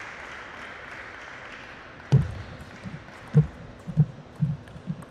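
Table tennis rally: the celluloid ball knocked back and forth off rubber-faced bats and the table. About six sharp, short hits come roughly half a second apart from about two seconds in, over a steady background hiss.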